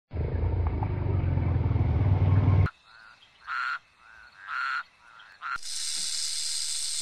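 Crocodile growling low for about two and a half seconds, cutting off abruptly; then a tree frog calling, two louder croaks about a second apart with fainter ones between; then, from about five and a half seconds in, a snake hissing steadily.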